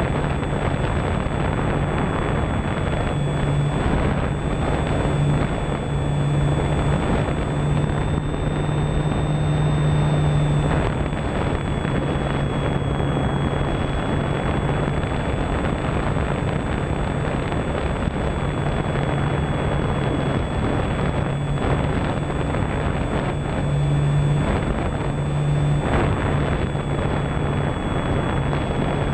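Onboard sound of a Great Planes Electrifly Cub electric RC model plane in flight: heavy wind rush on the camera's microphone over a steady low propeller hum and a thin high motor whine that wavers slightly in pitch.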